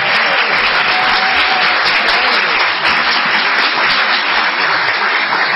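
Audience applauding: many people clapping together in a dense, steady patter.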